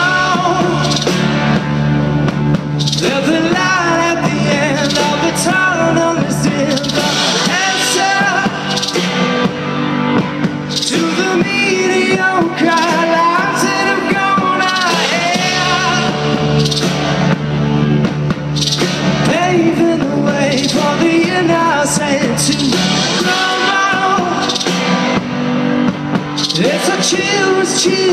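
Rock band playing live, with acoustic and electric guitars, bass and drum kit, and several voices singing together over the band.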